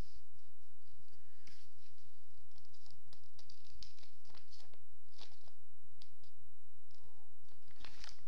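Plastic toy-pack wrapping being crinkled and torn open by hand, in a string of short, sharp crackles.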